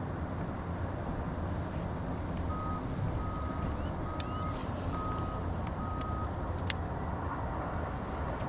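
A steady low hum with five short, evenly spaced electronic beeps at one high pitch in the middle, and a single sharp click near the end.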